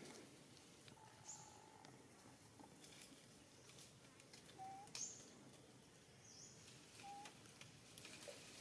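Faint bird calls: three short high chirps that drop in pitch, and three plain whistles, the first held for about a second.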